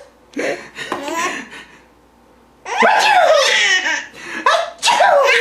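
A baby laughing hard in bursts of belly laughter, with a short pause about two seconds in before a longer, louder run of laughs.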